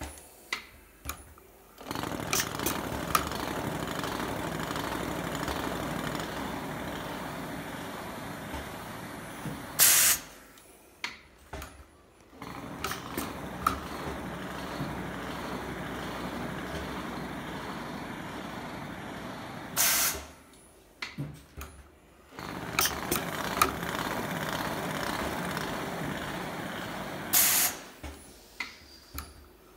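WIS PrepStar automatic weft-removal machine running in its cycle: about eight seconds of steady mechanical running, then a short loud hiss of compressed air and a few clicks before the running starts again. The cycle comes round three times, roughly every eight to ten seconds, about one weft yarn pulled out per cycle at some 348 threads an hour.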